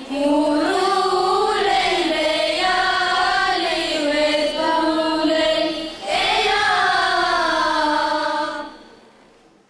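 A group of young girls singing together in unison, a slow melody of long held notes. The singing breaks off briefly about six seconds in, then fades away near the end.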